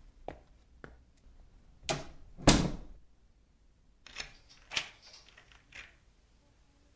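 An apartment door pulled shut with a thud about two and a half seconds in, after a few light clicks of the handle. Then a key rattles and clicks in the door lock, four clicks over about two seconds.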